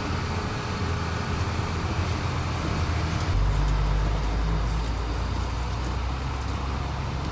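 Mercedes-Benz 1620 truck's diesel engine running, heard from inside the cab as a steady low drone. A little over three seconds in, the drone drops to a deeper, stronger hum.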